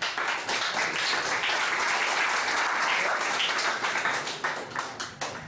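A crowd of people applauding, the clapping thinning out near the end.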